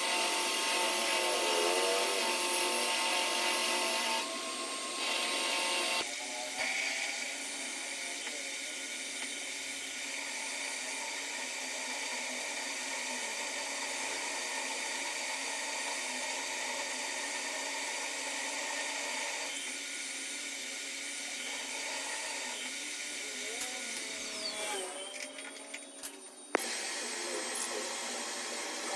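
A power tool running steadily, changing in tone a few times, with one sharp click near the end.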